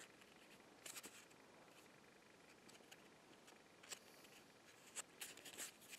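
Near silence with a few faint clicks and rustles from a cardboard decoder wheel being handled and turned, a small cluster of them near the end.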